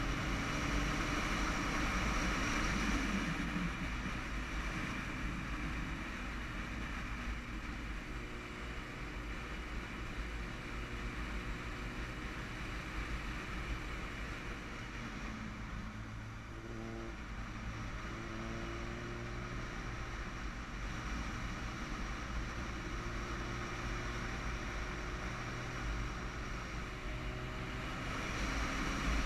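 Wind rushing past the camera on a moving Yamaha motorcycle, with the engine's hum underneath. The engine note shifts in pitch a little past halfway, and the sound grows louder near the end.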